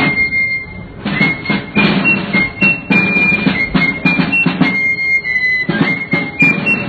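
Naval marching band of flutes and marching drums playing a march: a high flute melody moving step by step over steady drum beats.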